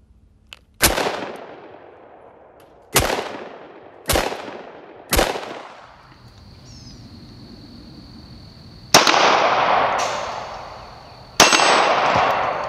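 Radom P-64 pistol (9×18 mm Makarov) firing six single shots at uneven intervals, each a sharp crack that decays away. The last two ring on longer.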